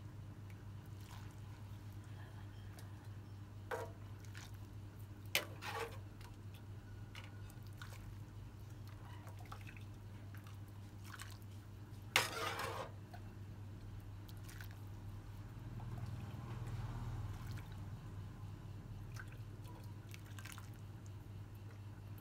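Quiet kitchen room tone: a steady low hum with a few faint clicks, and one louder, brief noisy sound about twelve seconds in.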